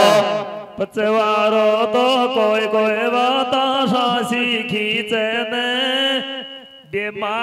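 A man singing a Meenawati folk song into a microphone over a loudspeaker, in long, wavering, drawn-out notes, with a short break about a second in and a pause near the end.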